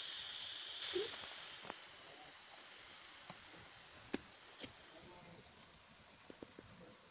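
Gas hissing out past the cap of a plastic bottle of fermenting EM4 culture as the cap is loosened, releasing pressure built up by the fermentation. The hiss is strongest in the first second or two and then fades away, with a few small clicks of handling.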